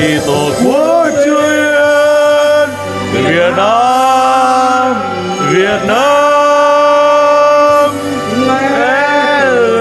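Music with a voice singing long held notes, each one swooping up into pitch, in about four phrases over a steady low drone.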